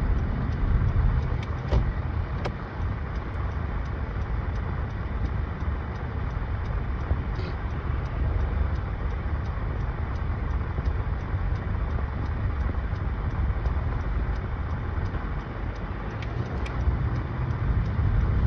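Steady low road and engine rumble heard inside a moving car's cabin, with a few faint ticks.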